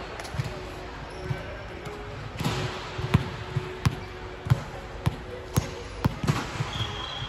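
A volleyball bouncing on a hard sport-court floor, an irregular string of sharp thuds.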